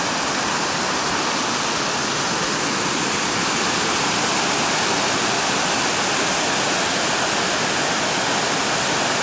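Waterfall cascades and the fast creek below them, a steady, loud rush of falling and tumbling water.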